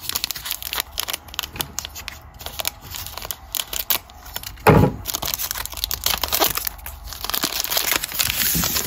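Foil wrapper of a Panini Mosaic trading-card pack crinkling and crackling as it is handled and torn open, with one louder crackle about halfway through. Near the end a longer rustle as the cards are slid out of the wrapper.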